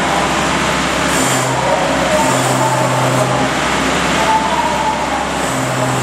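A vehicle engine running steadily amid dense machine noise, its low hum stepping up and down between two pitches every second or two.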